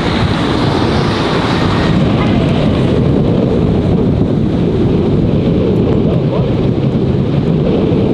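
Wind buffeting the microphone: a loud, steady low rumble with no clear tone in it.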